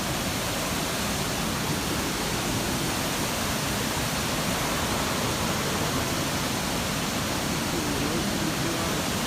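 Sandstone Falls on the New River: steady, even rushing of water pouring over the falls.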